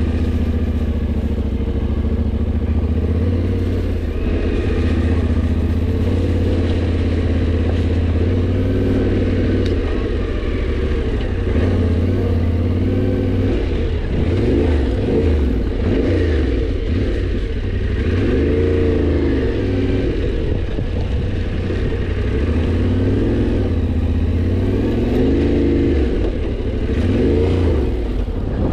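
Yamaha Ténéré 700's parallel-twin engine running at low revs as the bike works slowly over rough, washed-out dirt track. About halfway through, the engine note starts rising and falling repeatedly with the throttle.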